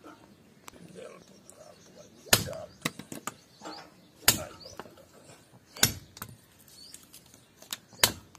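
A heavy curved steel sword blade chopping through a dry wooden branch resting on a tree stump: four sharp chops about two seconds apart, with lighter knocks between them.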